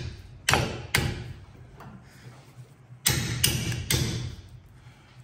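Hammer blows on a rusted-in ball joint bolt in a truck's front steering knuckle, trying to drive it out. Two sharp strikes, then three more about two seconds later, each ringing briefly.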